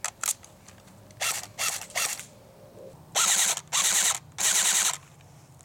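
Airsoft electric rifle (Colt M4A1 AEG) firing in bursts: two brief bursts about a second in, then three louder bursts of about half a second each, a rapid ratcheting buzz of the gearbox cycling. A couple of sharp clicks come just before, as a fresh magazine goes in.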